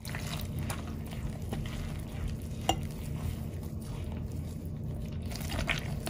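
Hands mixing and squeezing crumbly dough of flour and semolina in a glazed bowl: soft rustling and squishing with a few faint ticks against the bowl. A steady low hum runs underneath.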